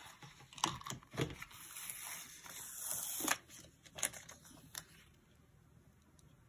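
Paper and a sticker sheet being handled on a planner page: rustling with several light clicks and taps, and a longer rustle about two to three seconds in, then quieter near the end.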